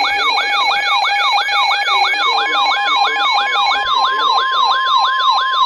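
Several weather alert radios going off together on an Emergency Alert System warning. A siren-like falling whoop repeats about four times a second over steady beeping tones. About two seconds in, the steady NOAA Weather Radio 1050 Hz warning tone joins them. The beeps drop out near the end. The alarms announce a severe thunderstorm warning about to be read.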